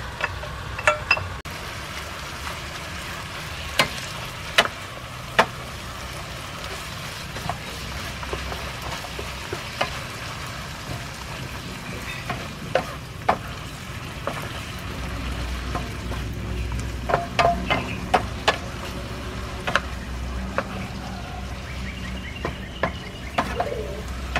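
Greens and pork stir-frying in a nonstick frying pan: a steady sizzle, broken by sharp knocks of a spatula against the pan, a dozen or so scattered through.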